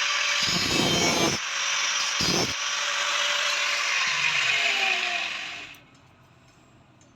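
Electric power tool grinding under load, a harsh steady grinding noise that stops suddenly a little under six seconds in, its pitch falling as it winds down.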